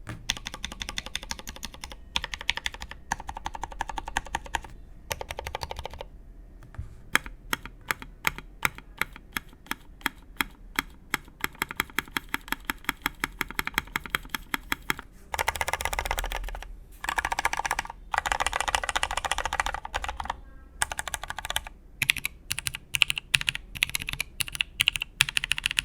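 Matrix 8xv2.0 mechanical keyboard with Hirose switches lubed with Krytox 205g0, on an aluminium plate with Cherry stabilisers and Cherry G81-3004 keycaps, being typed on. Fast runs of typing alternate with slower single keystrokes, about three a second, through the middle and again near the end.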